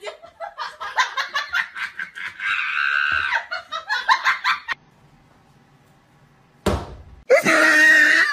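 A person laughing in quick repeated bursts, which stops for a couple of seconds, then a brief thump and more loud laughing near the end.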